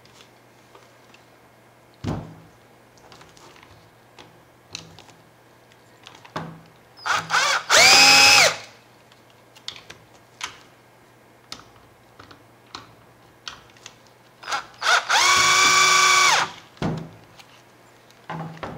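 Cordless screwdriver running in two short bursts about seven seconds apart, its motor whine rising as each starts, backing screws out of the side of a plastic toner cartridge. Between the bursts, clicks and knocks of the plastic cartridge being handled.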